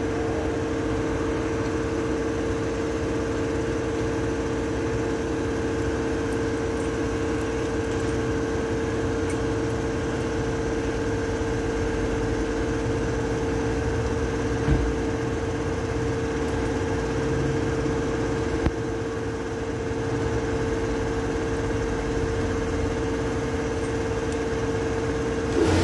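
Steady machine hum: a constant mid-pitched tone over a low rumble, unchanging throughout, with two brief knocks about fifteen and nineteen seconds in.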